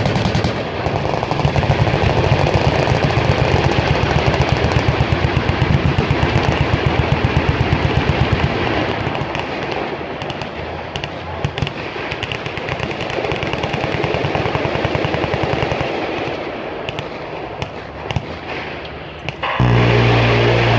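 Heavy automatic gunfire rattling across a range, dense and rapid for the first several seconds, then thinner with scattered sharp shots. About nineteen and a half seconds in, a minigun opens up close by with a sudden, louder, steady buzzing burst.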